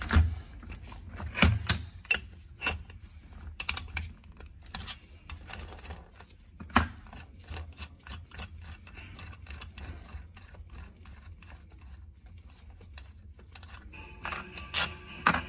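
Irregular small metallic clicks and taps from a spanner turning the nut on the threaded rod of a homemade bearing puller, with a few louder knocks, as a ball bearing is drawn out of an ATV gearbox casing.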